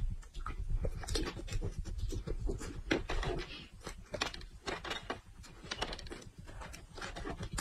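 Close-miked chewing of raw red chili peppers: a run of short, crisp crunches and mouth clicks, with puffing breaths through the mouth against the chili heat.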